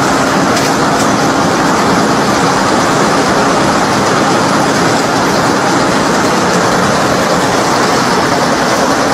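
Needle punching machine of a nonwoven line running, needling a felt batt as it feeds through: a loud, steady machine noise with no distinct beats or pauses.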